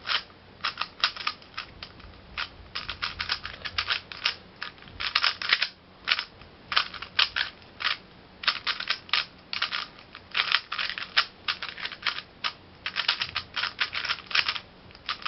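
3x3 speedcube being turned fast during a timed solve: quick runs of sharp plastic clicks from the layer turns, broken by short pauses.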